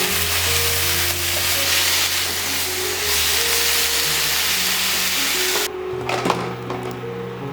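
Food frying and sizzling in a hot pan, with background music. The sizzling cuts off suddenly near the end, followed by a single light knock.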